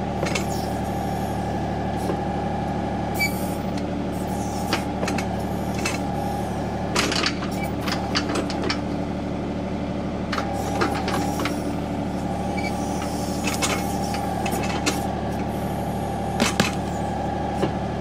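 John Deere compact tractor's diesel engine running steadily while it powers a 270B backhoe digging around a tree stump, with scattered clunks and knocks from the bucket and linkage working the ground and swinging.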